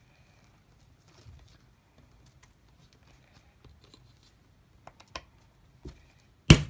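Faint handling of small metal parts with a few light clicks, then near the end one loud, sharp hammer blow on a setting punch, driving a 15 mm popper (snap fastener) closed through a holster strap.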